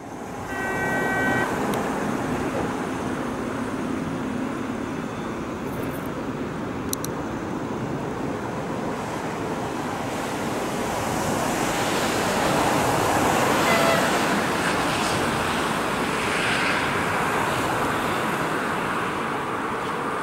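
EP2K DC electric locomotive and its passenger coaches approaching on the rails: a steady rushing rumble that swells as the train nears, loudest about two-thirds through. A brief high tone sounds about a second in.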